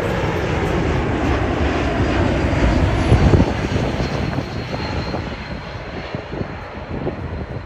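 Airbus A220-300 on landing approach, its Pratt & Whitney PW1500G geared turbofan engines making a loud jet rumble as it passes overhead. The noise peaks about three seconds in, then fades away as the aircraft moves off.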